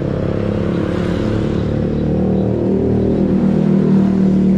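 Yamaha RX-King's two-stroke single-cylinder engine running steadily, getting slightly louder toward the end.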